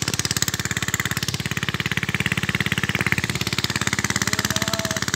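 A small engine running steadily with a fast, even chugging pulse.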